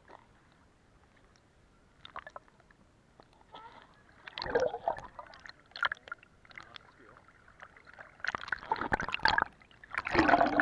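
Muffled splashing and sloshing of river water against an action camera's waterproof housing as the camera is moved through the water and breaks the surface. It is quiet for the first few seconds, then irregular splashes start about four seconds in and grow heavier, loudest near the end.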